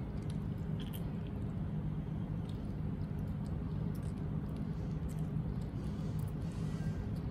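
Baby monkeys eating dragon fruit: faint scattered clicks of chewing and handling the soft fruit, over a steady low hum.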